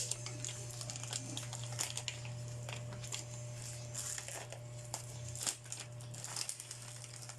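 Packaging crinkling and rustling in irregular crackles as an item is handled and unwrapped, over a steady low hum.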